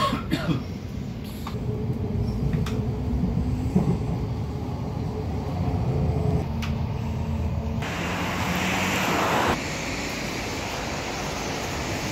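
Suburban electric train running on the rails, heard from inside the carriage: a low rumble with a few sharp clicks and a faint steady whine. About eight seconds in, a louder rushing hiss sets in and cuts off suddenly a second and a half later, leaving a steady even noise.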